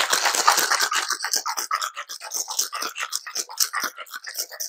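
Cocktail shaker being shaken hard to mix a martini, its contents rattling in a fast, even rhythm of about five strokes a second. Loudest at first, easing slightly after about a second.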